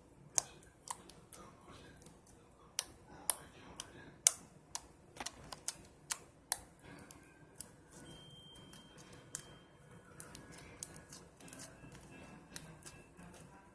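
Slime being worked by hand, giving irregular sharp clicks and pops.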